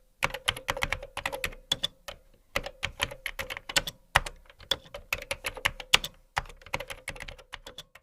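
Computer keyboard typing: quick runs of key clicks with brief pauses between bursts.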